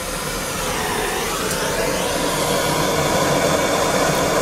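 Gas blowtorch burning with a steady hiss, its flame heating a fluxed copper pipe socket joint ahead of soldering. The hiss grows a little louder over the first second or two, then holds steady.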